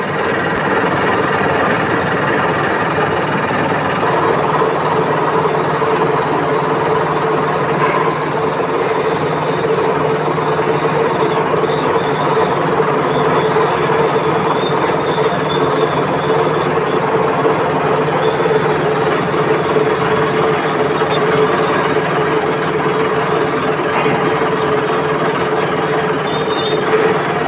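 NH22 centre lathe running steadily while drilling, with a constant machine hum and whine from its headstock drive.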